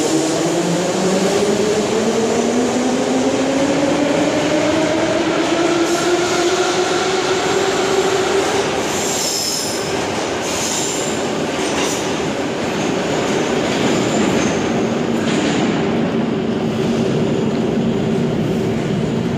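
Moscow metro 81-717/714 ('Nomernoy') train pulling out of the station: its traction motors whine, rising steadily in pitch for about eight seconds as it accelerates. This gives way to a steady rumble of wheels on rail with a few clicks.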